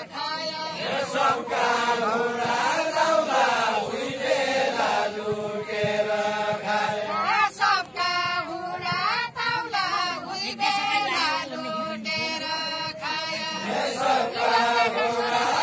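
Deuda folk song of far-western Nepal, sung by a group of voices in a chant-like melody with long held notes.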